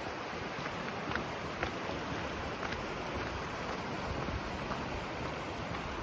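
Steady rushing of a fast, shallow river running over rocks and boulders, with a few faint footstep crunches on a gravel path.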